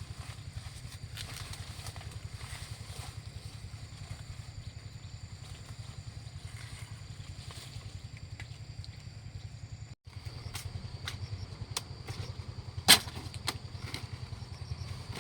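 Small engine running steadily with a low, fast-pulsing hum. A single sharp knock near the end is the loudest sound.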